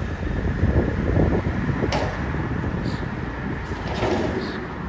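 Front-end loader garbage truck's diesel engine and hydraulics running steadily while its forks hold a commercial dumpster upended over the cab to empty it. A sharp metal clank comes about two seconds in, and another clatter near four seconds.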